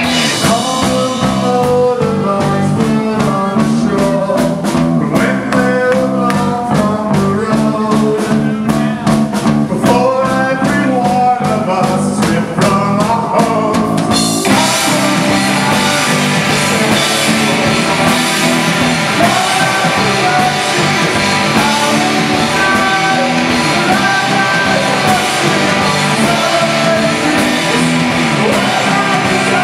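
Live rock band playing: electric guitar, Rickenbacker-style electric bass and drum kit, with a man singing. About halfway through, the cymbals wash in and the sound turns denser and fuller.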